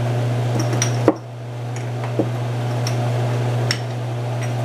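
A steady low hum from a running kitchen appliance motor, with a few light clicks and clinks of spice containers and utensils being handled. The sharpest knock comes about a second in.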